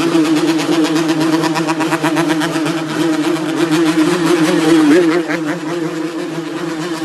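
Yamaha RX-King's single-cylinder two-stroke engine revved hard and held at a steady pitch, with a brief wobble in the revs about five seconds in.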